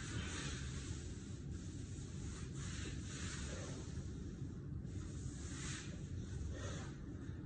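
A man breathing hard through push-ups: a run of short, sharp, airy exhales about once a second, over a steady low rumble.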